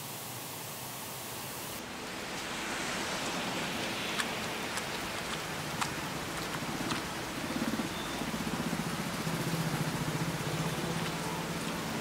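A steady hiss, then from about two seconds in a heavy downpour of rain, with scattered sharp drop ticks. A low pulsing hum joins from about seven seconds in.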